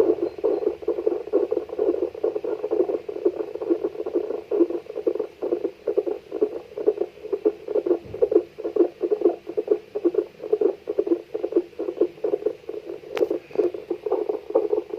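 Fetal heartbeat played through a Baby Tone wireless fetal Doppler: a rapid, steady whooshing pulse, picked up as a strong signal. One sharp click sounds near the end.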